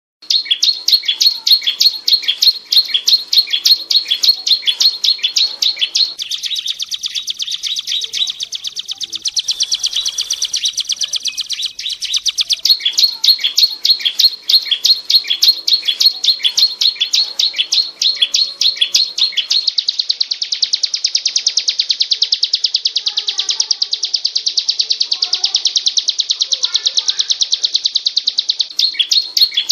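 Ciblek gunung (a mountain prinia) singing nonstop: a fast run of sharp, high chirps, changing near a third of the way in, then breaking into one long unbroken buzzy trill for about eight seconds before the chirps return near the end.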